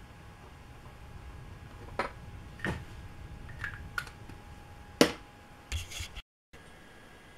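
A few light clicks and taps of small objects set down on a worktable, about five in all, the loudest about five seconds in, with a short cluster just before the sound cuts out for a moment.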